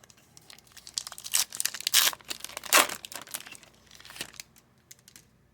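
A 2023-24 Upper Deck MVP Hockey card pack's wrapper being torn open and crinkled: a run of crackles and rips, loudest at about two and three seconds in.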